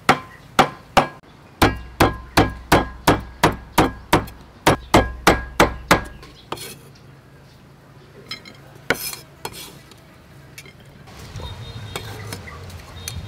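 Meat cleaver chopping grilled beef on a wooden cutting board: a fast, even run of sharp knocks, about three a second, for some six seconds, then a few scattered knocks.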